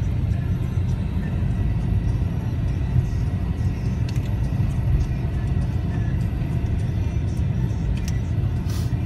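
Car cabin noise while driving: a steady low rumble of engine and tyres on the road, heard from inside the car, with a few faint ticks.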